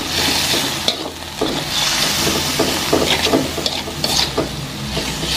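Ground beef tendon sizzling as it fries in a wok, stirred with a metal spatula that scrapes and taps against the pan again and again. The meat is still partly raw and being cooked through.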